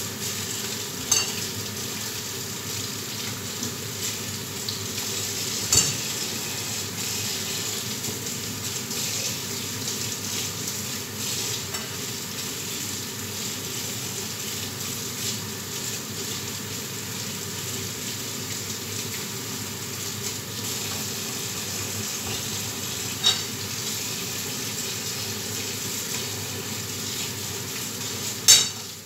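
Food frying in a pan with a steady sizzle, broken by four sharp clinks of a utensil on the pan, the loudest near the end.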